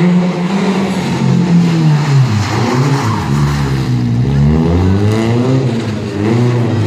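Rally car engine running hard on a tight gymkhana course: the pitch drops as the driver lifts off about two seconds in, then climbs again as the car accelerates away and holds high revs near the end.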